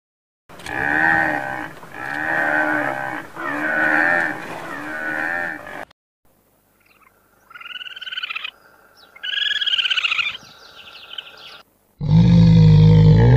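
Four drawn-out animal calls, each just over a second long, then after a short pause meerkats' short high calls in two bursts, with fainter ones after. Near the end a brown bear gives a loud, deep call.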